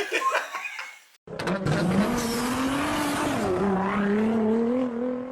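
Suzuki Intruder VL1500 V-twin motorcycle engine running through a Falcon aftermarket exhaust; it cuts in suddenly about a second in, after brief talking and laughter. The engine note climbs, dips for a moment midway, then climbs again.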